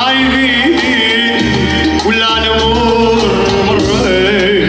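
Male singer singing an Arabic song into a microphone, his voice bending through ornamented, wavering turns over electronic keyboard accompaniment.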